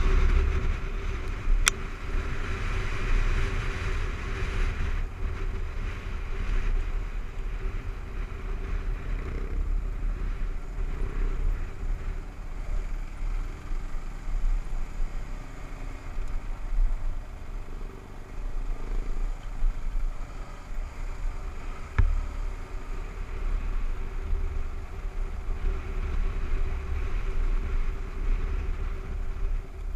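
Kawasaki KLR 650's single-cylinder engine running steadily while riding, with wind rumble on the helmet microphone. Two sharp knocks stand out, one near the start and one about two-thirds of the way through.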